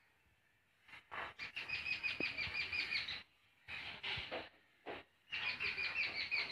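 A bird calling in quick runs of high chirps, about eight a second, two runs of roughly two seconds each, with short rustling noises between them.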